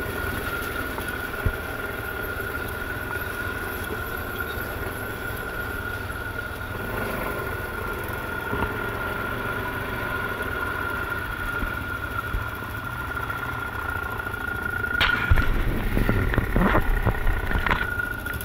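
ATV engine running steadily as the quad rides along a gravel track, with a constant whine over a low rumble. Near the end it gets louder, with a few knocks and clunks from the rough ground.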